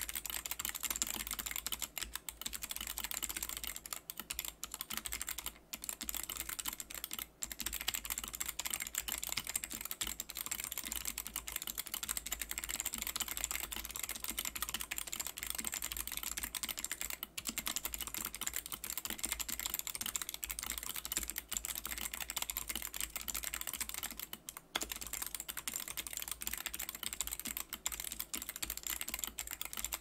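Fast, continuous typing on a HANSUNG TFG ART mechanical keyboard with Outemu "Snapspring" switches, tape-modded and with PBT Pudding keycaps: a dense run of key clicks with a few brief pauses.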